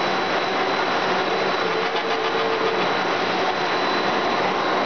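Plastic strand pelletizer on a twin-screw extrusion line running, chopping the extruded strands fed from an air-cooling conveyor belt: a steady, dense mechanical noise with a thin high whine.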